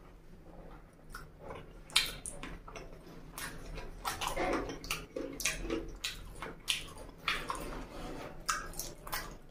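Close-up mouth sounds of eating chicken feet curry and rice by hand: wet chewing and lip smacks, with one sharp loud smack about two seconds in.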